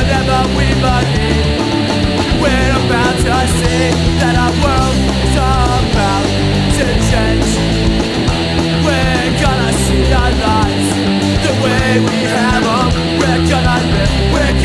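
Loud rock or metal music with distorted guitars and a steady beat.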